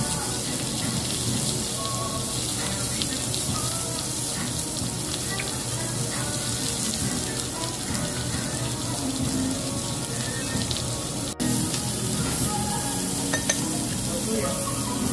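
Lamb sizzling on a domed cast-iron Genghis Khan grill over charcoal: a steady frying hiss, broken by a brief dropout about eleven seconds in.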